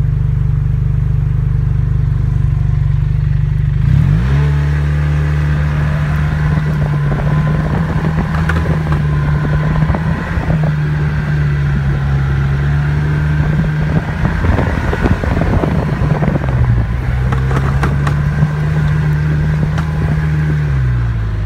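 Snowmobile engine idling steadily, then revving up about four seconds in and running at a steady speed as the machine moves off along the trail, with knocks and rattles over the ride. The engine note drops near the end as it eases off.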